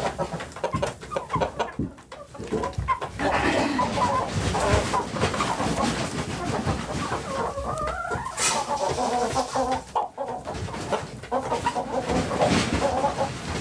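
Chickens clucking and calling in the coop: many short calls, with one longer rising-and-falling call about halfway through and a few knocks and rustles.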